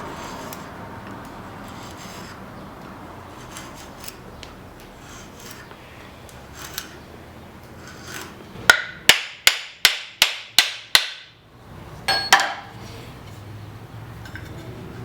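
Blacksmith's hammer striking steel: a quick run of seven ringing blows, about three a second, then two more close together a moment later, over a steady noisy background.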